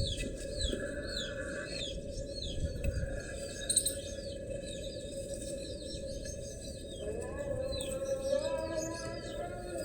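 Birds chirping, with short falling chirps repeated about twice a second over a steady low rushing noise; a few soft rising tones come in after about seven seconds.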